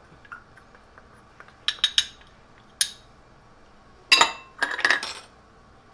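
Metal spoon clinking and tapping against a container and the rim of a stockpot while powder is scraped out: a few sharp clinks, then a louder run of clattering clinks with a short ring about four seconds in.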